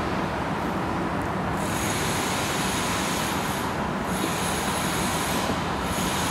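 Steady background hum and hiss, with faint steady high-pitched whines over it and no distinct event.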